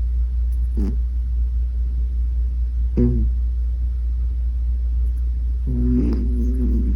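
Cat snoring: three pitched, buzzy snores about three seconds apart, one per breath, the last one the longest, over a steady low rumble.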